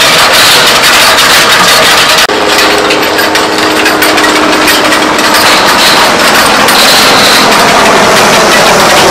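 Case IH Puma 165 CVT tractor's diesel engine running under load while the towed Elho rock picker digs through stony soil, with a dense, continuous clatter of stones and machinery. The sound drops out for an instant about two seconds in, then carries on.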